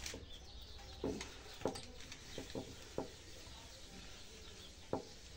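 Pruning shears snipping through bonsai training wire on a juniper branch: a handful of short, sharp clicks at irregular intervals. The shears stand in for a proper wire cutter, so some cuts nip the bark.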